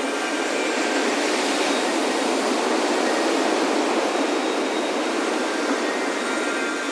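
Ocean surf washing steadily onto a beach, a continuous rush of breaking water that fills out through the middle. Wind chimes ring faintly toward the end.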